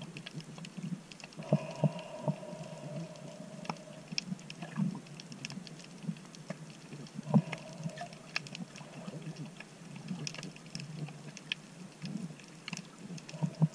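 Underwater ambience picked up by a submerged camera: a low steady rumble of water with scattered sharp clicks and crackles, and two brief humming tones about a second and a half in and again about seven seconds in.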